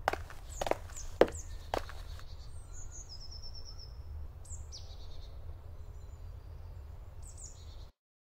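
Forest ambience with birds chirping and trilling over a steady low rumble. Four sharp thuds, like footsteps, come in the first two seconds. The sound cuts off suddenly near the end.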